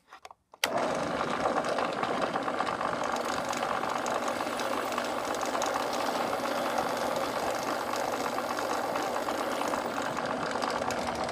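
Benchtop drill press starting up suddenly under a second in, then running steadily while a 3/32-inch bit drills into a metal carburetor float bowl.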